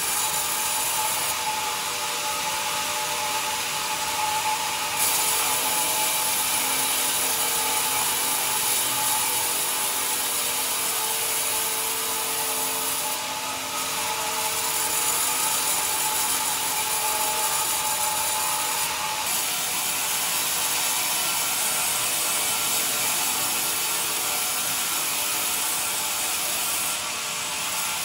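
Sawmill band saw running with its blade cutting through a pine beam on the log carriage: a steady high hiss of blade through wood. A thin whine runs with it and drops out about two-thirds of the way through.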